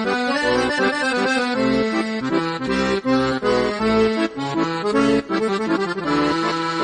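Instrumental background music: a melody of held, stacked notes over short bass notes that repeat at a regular beat.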